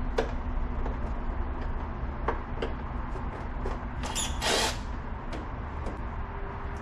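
Scattered light clicks and taps of small metal starter parts being handled and fitted together on an ATV. A short hiss comes a little after four seconds in, over a steady low hum.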